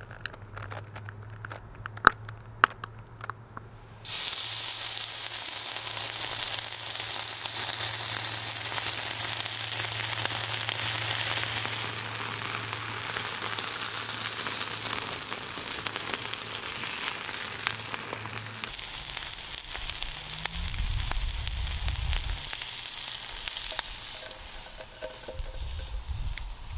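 Steak sizzling and hissing as molten rock poured from a crucible sears it, starting abruptly about four seconds in after a few sharp clicks. Low rumbles come and go near the end.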